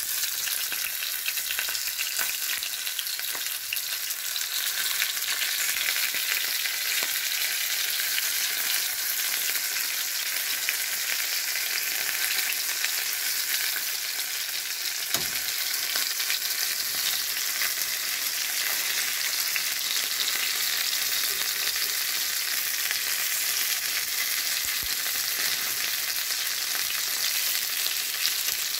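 Shell-on shrimp frying in hot olive oil in a metal pan: a steady sizzle with fine crackling, and one knock about halfway through as tongs work the shrimp in the pan.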